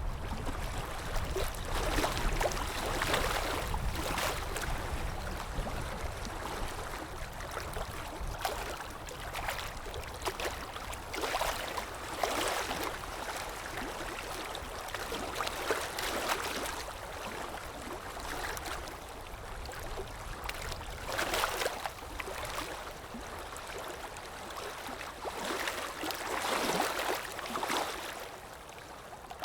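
Water splashing and washing in uneven swells every few seconds, over a steady low rumble.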